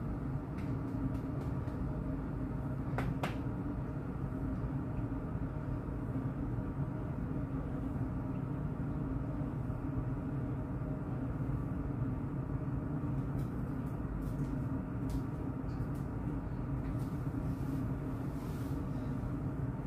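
Steady low hum of a running ceiling fan, with a few faint taps and clicks, most of them near the end.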